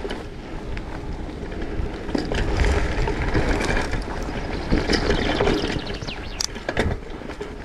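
Rumble and rattle of riding along a rough track, with wind buffeting the microphone and scattered knocks.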